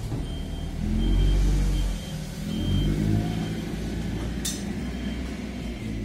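Clark C30 forklift engine running with a low rumble that swells twice as the truck backs away carrying a bale, with its reversing alarm beeping faintly about every 0.7 s. A sharp click sounds about four and a half seconds in.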